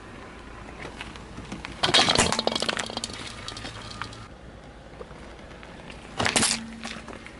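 A car tyre rolls over and crushes objects: a loud burst of cracking and snapping about two seconds in, then a shorter crunch near the end as the tyre presses down on a small metal food tin.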